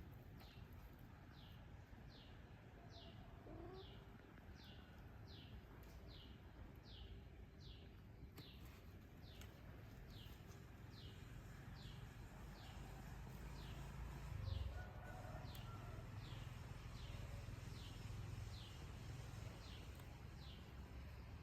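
A bird calling steadily in the background: a long series of short, high notes, each sliding downward, a little over one a second, with a faint low rumble beneath. One soft low thump about two-thirds of the way through.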